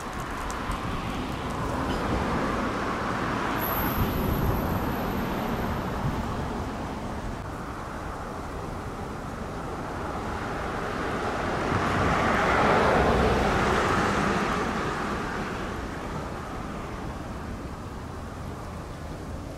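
Road traffic noise: a car passes, its tyre and engine noise swelling and fading about two-thirds of the way through over a steady background of road noise.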